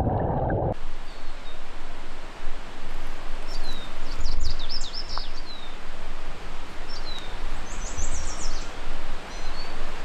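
Steady rush of a waterfall's falling water. Birds chirp in short calls over it, a cluster a few seconds in and another later on.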